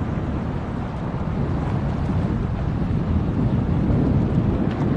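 Wind buffeting the microphone in a steady low rumble, over the wash of choppy sea water.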